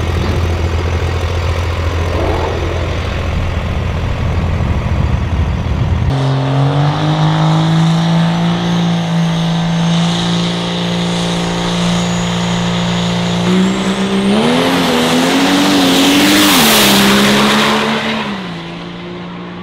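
Dodge Ram quad cab diesel truck engine running with a low steady rumble, then stepping up to a higher, held engine note. Later it revs with a wavering pitch under a high rising turbo whistle and a loud hiss as the tires spin on the wet launch pad, loudest shortly before it drops off near the end.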